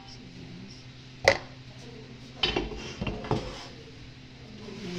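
Enamelled metal baking pan clinking and clattering as it is handled on the counter: one sharp clink about a second in, then a run of knocks and clatter a second later, over a steady low hum.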